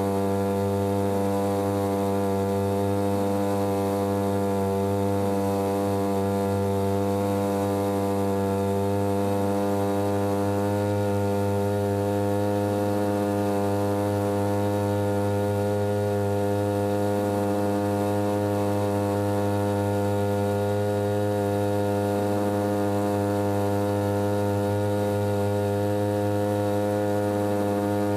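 Small 3 hp outboard motor running at a steady cruising throttle, an even, unchanging drone pushing the boat along at cruising speed.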